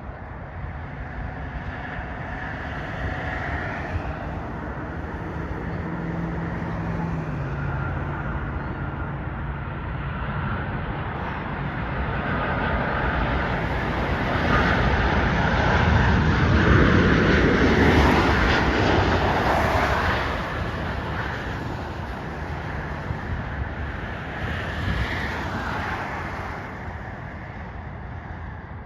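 Boeing 737-800's CFM56 turbofan engines on arrival, the jet noise swelling to a peak about two-thirds of the way through and then fading as the airliner passes.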